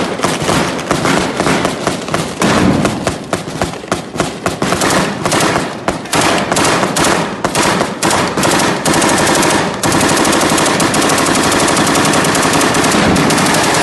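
Sustained automatic gunfire: rapid shots in quick bursts, merging into an unbroken stream of fire for the last four seconds or so.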